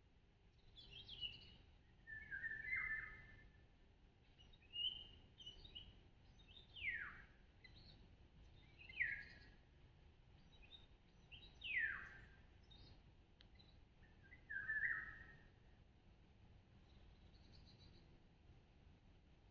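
A songbird calling, a series of short phrases every second or two, several of them clear whistles that slide steeply down in pitch, with chirpier notes in between; the calls stop near the end.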